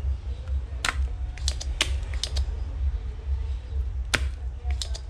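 A string of short, sharp clicks and taps at an uneven pace, about ten in all, the loudest about four seconds in, over a steady low hum.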